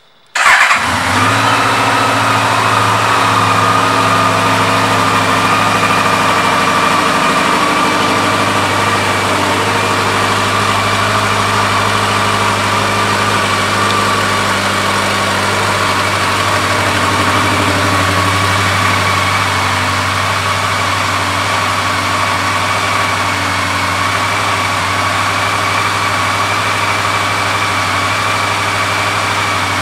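2017 Honda CB1100's air-cooled inline-four, breathing through an aftermarket exhaust, comes in abruptly about half a second in with a brief peak, then idles steadily.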